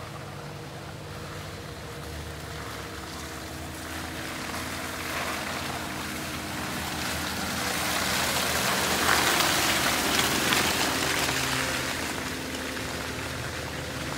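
Off-road 4x4 engine running, with a hiss of splashing mud and water that swells in the middle and eases off toward the end.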